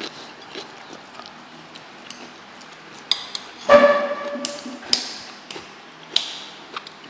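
Clinks and taps of eating utensils on dishes, with one louder ringing clink a little under four seconds in and a few lighter ones after it.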